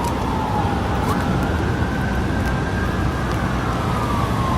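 Steady city traffic noise with an emergency-vehicle siren wailing slowly up and down through it.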